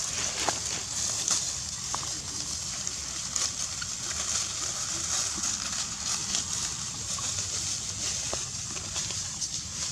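Dry leaf litter rustling and crackling as long-tailed macaques move over it, with a few faint short squeaks, over a steady high hiss.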